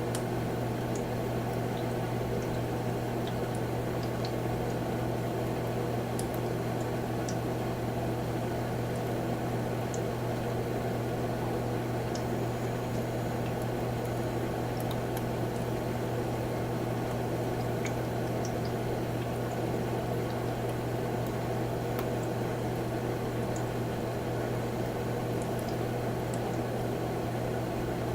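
Humidifier running steadily: an even low hum under a dense wash of noise, with scattered faint ticks.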